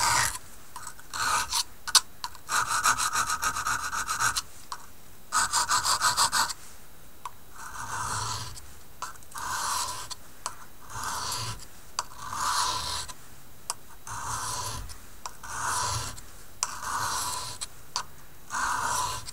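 High-carbon steel knife blade being honed by hand on a sharpening stone, the steel scraping along the stone: quick short strokes in the first few seconds, then slower single strokes about one every second and a half.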